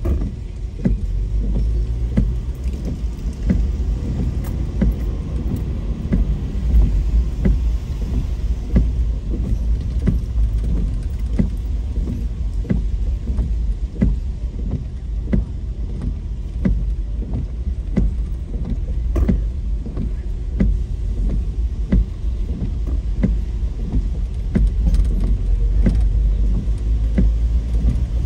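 Car driving, heard from inside: a steady low road rumble with frequent small, irregular knocks and rattles, about one or two a second.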